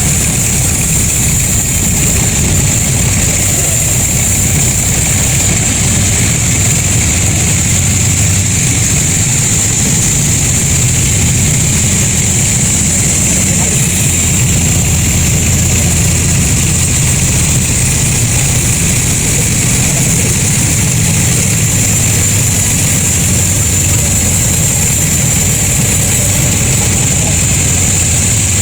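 Sawmill machinery running steadily: a low engine hum under a constant high-pitched whine, with no change in load throughout.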